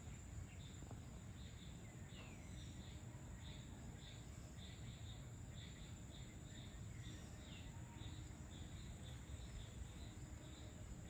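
Faint evening outdoor ambience: a steady run of high, evenly repeated chirps, about two to three a second, like crickets, with a few short falling bird-like calls over a low rumble.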